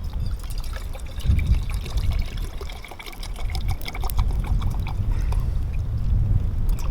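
Small campfire crackling and popping as a freshly lit tinder bundle catches, with heavy wind rumbling on the microphone.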